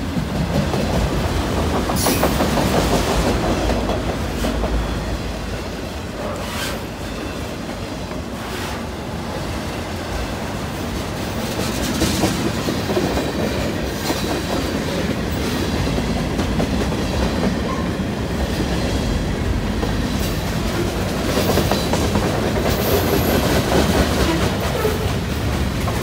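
Freight train cars rolling past close by: a steady rumble of steel wheels on rail with clickety-clack over the rail joints, and a few sharper clanks along the way.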